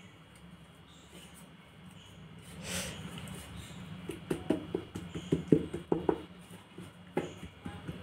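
Hands folding and pressing a sheet of oiled dough on a plate, making a brief rustle and then a quick irregular run of soft pats and taps.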